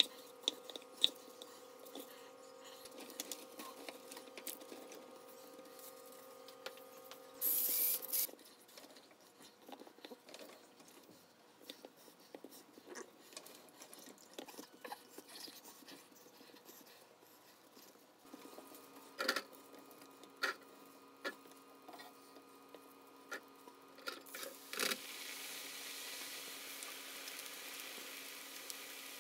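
A chef's knife chopping through raw potato onto a wooden cutting board, sharp chops at first, then scattered taps and handling noises with a brief louder rustle about eight seconds in. About 25 seconds in, a steady hiss sets in: potato fries sizzling in hot oil in a deep fryer.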